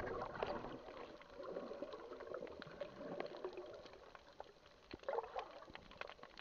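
Water heard through a submerged camera: a muffled, gurgling wash of moving water with scattered faint clicks, and a short louder bubbling swirl about five seconds in.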